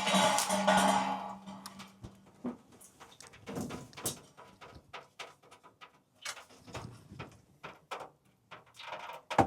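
A water heater tank being handled and moved into place: a scraping stretch, then scattered knocks and clunks, the sharpest one near the end.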